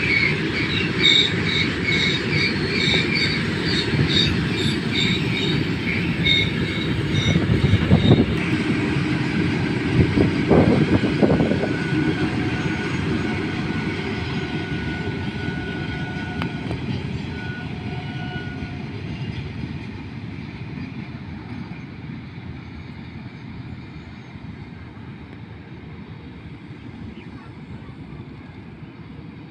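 BOXNHL freight wagons rolling past: a steady rumble of wheels on rail, with a high-pitched sound repeating about twice a second for the first several seconds and a few clunks around the middle. The rumble then fades steadily as the end of the train draws away.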